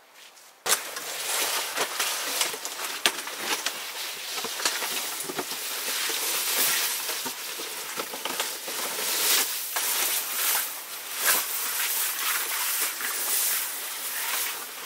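Spruce boughs being handled and spread on the ground: a dense, continuous rustling and crackling of needles and twigs, full of small snaps. It starts abruptly just under a second in.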